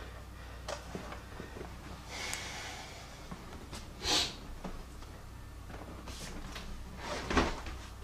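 Plastic center-console trim panel being handled and carried off: scattered light knocks and rustles, a short scrape about four seconds in, and a louder knock with a thud near the end.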